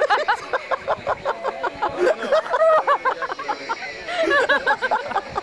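Several people talking and exclaiming over one another, an indistinct babble of voices.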